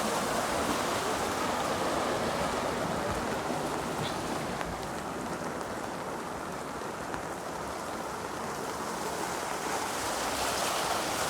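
Heavy monsoon rain falling steadily, with floodwater rushing. The hiss eases slightly in its highest range mid-way and picks up again near the end.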